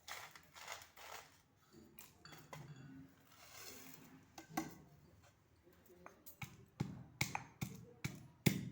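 Pieces of dried ginger and rock sugar clinking and rattling into a stone mortar. About six and a half seconds in, a pestle starts pounding them in steady strikes, two to three a second, to crush them to powder.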